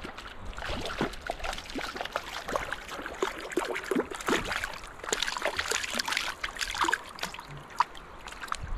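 River water splashing and dripping close by as a hooked brown trout thrashes at the surface and is handled in the water. It comes as many small irregular splashes and trickles, busiest a little past the middle.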